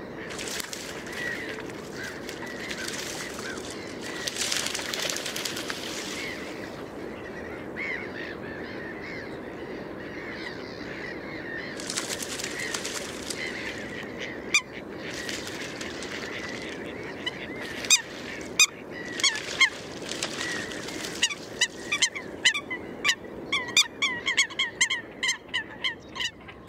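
Eurasian coots fighting and chasing on open water: bouts of splashing, with short sharp honking calls. The calls come thick and fast in the last third.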